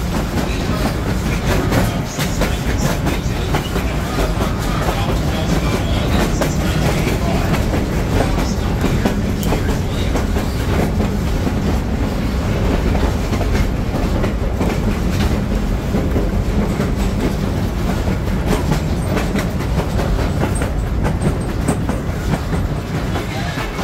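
Open-air railroad excursion car rolling along the track: a steady low rumble of the wheels with a running clickety-clack of the wheels over the rail.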